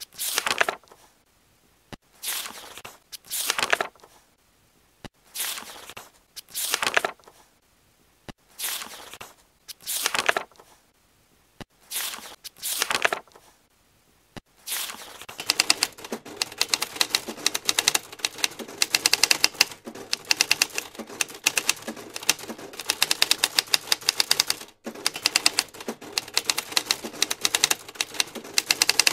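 Pages of a paper book being turned, one swish at a time, about every second and a half. From about halfway through, a typewriter typing quickly, a dense run of key strikes with one brief pause.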